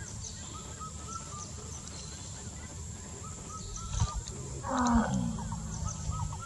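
A wild elephant gives one short, harsh call about five seconds in, its pitch falling, over a steady low background noise and short, repeated bird chirps.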